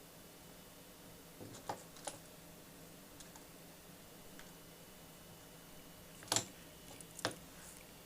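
Four short, sharp clicks and light knocks, in two pairs a few seconds apart, over a faint steady hum.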